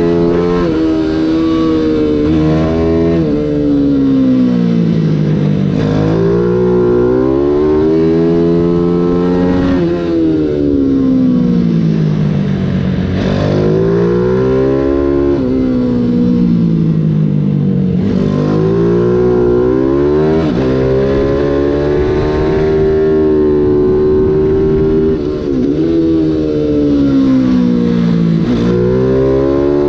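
Mini GP 140 race bike's engine heard from on board while racing at full pace: the revs climb in steps through the gear changes, then drop sharply as the rider brakes and shifts down for each corner, several times over.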